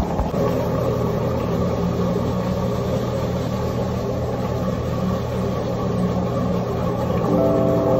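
Electric rotary floor machine scrubbing a rug: a steady motor hum with the rough noise of the brush on the pile. Music comes in near the end.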